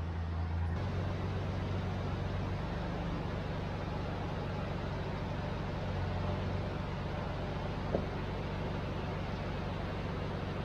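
Vehicle engine running steadily at idle, a low even hum, with one short click about eight seconds in.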